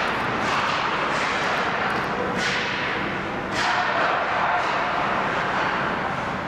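Ice hockey play: skates scraping the ice and about half a dozen sharp clacks of sticks and puck, over steady arena noise.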